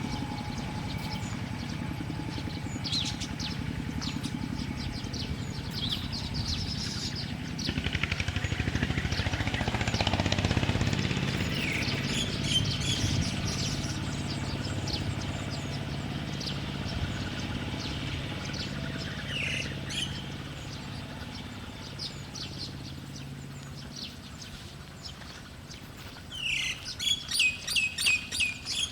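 Small songbirds chirping in short scattered calls, ending in a loud rapid run of about a dozen chirps near the end. A steady low rumble runs underneath and fades away in the second half.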